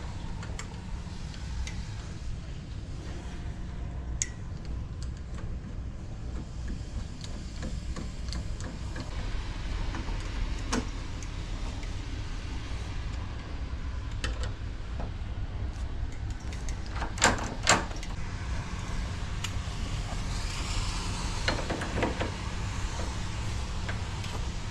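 Scattered small clicks and taps of door-lock hardware being handled and fitted, with two sharper knocks about 17 seconds in, over a steady low rumble.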